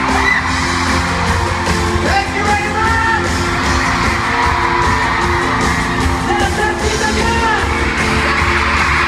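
Live pop music with singing, played over a concert sound system in a large arena hall, with the audience yelling and cheering over it.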